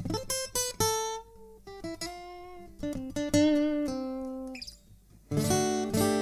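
Michael Kelly V15CE acoustic guitar, a cedar top with mahogany back and sides, being played: a run of picked single notes and broken chords that ring out, a brief pause, then a strummed chord near the end.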